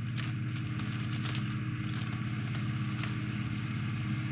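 A steady low hum with a constant hiss. A few faint light clicks and rustles come from the cardboard ship model being handled.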